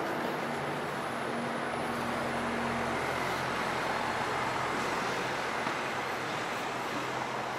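City street traffic: cars and double-decker buses running past in a steady wash of road noise, with a low engine hum that stands out for a second or two near the start.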